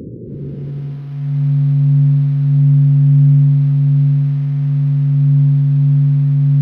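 A low windy rumble, the Mars wind recorded by the Perseverance rover's SuperCam microphone, dies away within the first second. Then a steady low hum at one unchanging pitch with overtones takes over, swelling gently. It is NASA's sonification of the Sun's atmospheric motion, sounding like a human humming.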